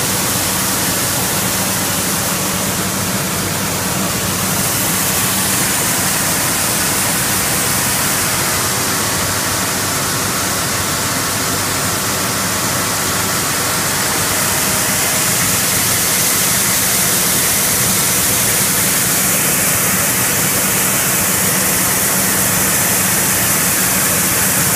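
Coffee mill processing machinery running: a steady rushing rattle of green coffee beans streaming across vibrating tables and screens, with a steady low motor hum underneath.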